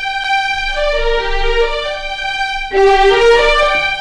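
Sampled violin sections of the Cinematic Studio Strings library, first and second violins, playing a slow legato phrase in two parts from the library's close microphones, without the stereo-centring and sample-delay enhancement. The notes swell louder about three seconds in, and the phrase stops abruptly at the end.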